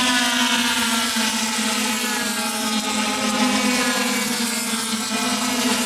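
Tuned two-stroke racing scooter engine running at speed, its pitch falling slowly and steadily, with a steady lower drone underneath.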